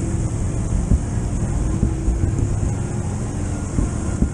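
Quad (ATV) engine idling with a steady low rumble and a faint even tone, mixed with irregular low thumps of wind on the microphone.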